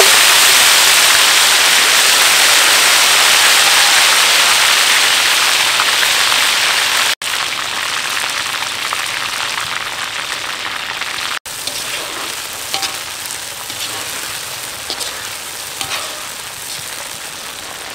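Dried shrimp frying in hot oil in a wok: a loud, dense sizzle that slowly dies down, with light pops and crackles in the later part. The sound breaks off for an instant twice.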